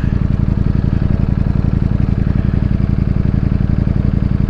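Ducati Streetfighter V4's V4 engine idling steadily, its even, fast exhaust pulse holding one pitch with no revving.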